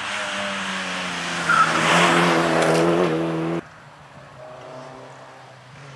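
Rally car engine running hard at full throttle as the car drives up close and past, growing louder to a peak, then cutting off abruptly about three and a half seconds in. A fainter engine is left in the background afterwards.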